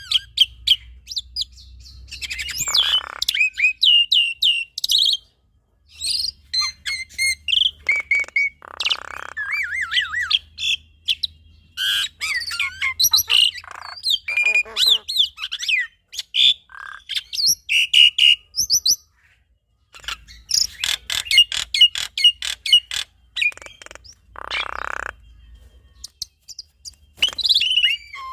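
Black-winged myna and Javan myna singing a duet: a varied, chattering run of chirps, gliding whistles and rapid rattling clicks, broken twice by brief pauses.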